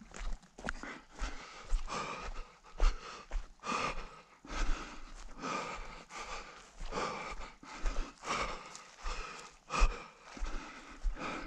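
A runner's hard breathing, with noisy breaths repeating every half second to a second, and the low thuds of running footsteps.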